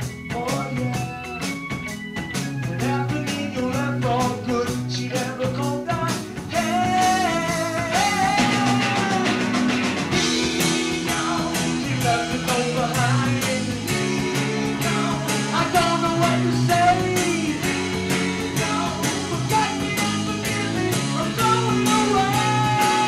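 Live rock song with a male singer over guitar and drums, getting louder about six and a half seconds in.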